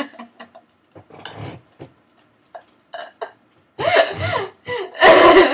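A girl laughing hard in several loud bursts with short pauses between, the loudest burst near the end.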